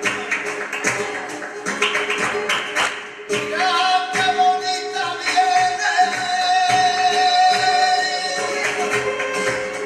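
Live flamenco music, opening with sharp percussive strikes. From about three seconds in, a voice holds one long sung note over the continuing strikes until near the end.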